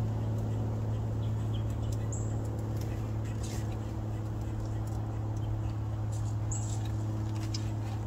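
A steady low hum, with faint scattered rustles and clicks of a gray squirrel foraging in dry leaf litter and a few short, high chirps.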